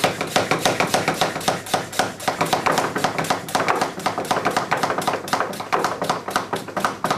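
Hand pump of a Vacu Vin vacuum storage canister worked rapidly up and down, a fast even run of sharp clicking strokes, several a second, drawing the air out of the canister.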